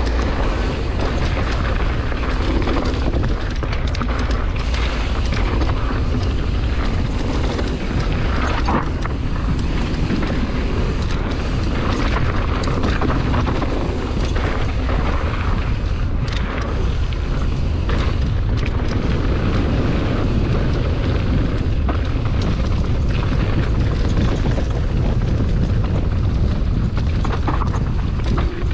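Steady low wind rumble on the camera microphone, mixed with tyre and chain clatter from a mountain bike running fast down a rocky downhill trail, with a few sharp knocks from hits over rocks.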